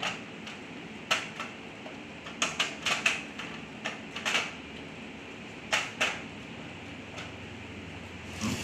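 Irregular sharp clicks and taps of server hardware being handled during a RAM installation, several in quick succession about two and a half to three seconds in, over a steady background hum.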